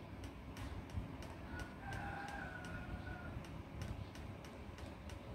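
Steady light ticking, about four ticks a second, over a low background rumble. From about one and a half seconds in, a distant drawn-out animal call is held for nearly two seconds.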